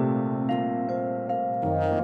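Chamber music for alto saxophone, vibraphone, harp and piano: harp and piano notes over held tones, with a new low note coming in shortly before the end.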